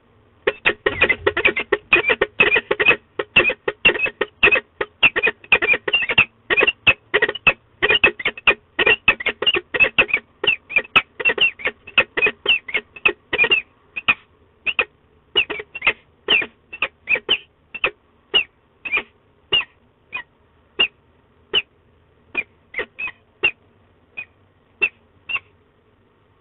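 Peregrine falcon calling: a fast series of short harsh calls, several a second, that slows about halfway through to a call every second or so.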